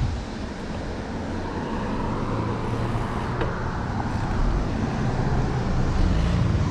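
Road traffic noise heard from a moving bicycle: a steady low rumble and hiss that grows slowly louder.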